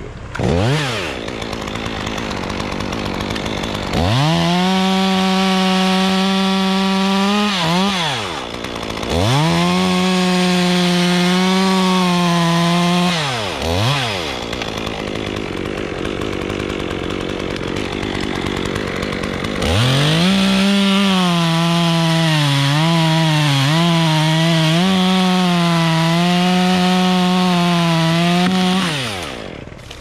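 Chainsaw cutting a rigged pin oak limb. The engine revs up to a high steady pitch three times, about four seconds, four seconds and nine seconds long, and drops back to idle between. In the last, longest run the pitch dips several times as the saw works in the wood.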